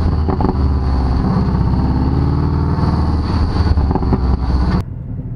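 Porsche 718 Cayman GTS's 2.5-litre turbocharged flat-four heard at the sports-exhaust tailpipes as the car pulls away gently at low revs. The exhaust note rises in pitch over a couple of seconds, then holds steady, and cuts off suddenly near the end.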